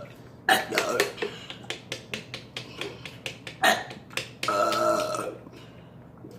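People burping on purpose, several burps with the longest, pitched one about four and a half seconds in. A run of short sharp clicks comes between the burps.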